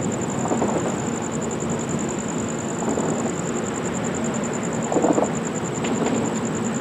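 Amtrak passenger train standing at the station platform, running as a steady low rumble, with a brief louder burst about five seconds in.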